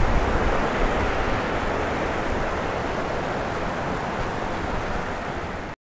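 Steady rush of a fast mountain creek cascading over rocks. The sound cuts out abruptly near the end.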